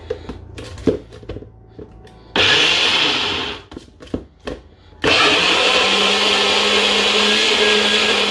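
Small personal blender: a few knocks as the jar is seated on the base, a short pulse about two seconds in, a pause, then a longer steady run over the last three seconds, its motor tone rising and settling as it gets up to speed. It is chopping chopped vegetables into a green paste.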